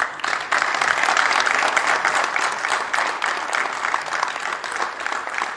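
Audience applauding: dense clapping that starts suddenly, holds steady, and eases off a little near the end.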